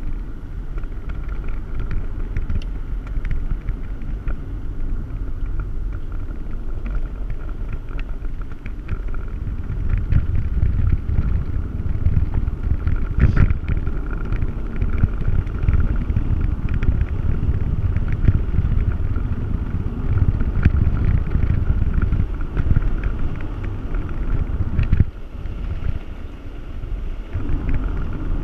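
Vehicle driving along a rough dirt road, heard from inside the cabin: a low rumble of engine and tyres with frequent knocks and rattles over the bumps, and one harder jolt about halfway through.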